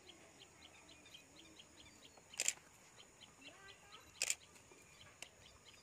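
A bird chirping rapidly, with short, evenly spaced high notes at about five a second. Two brief, sharp noises stand out above the chirping, about two and a half and four seconds in.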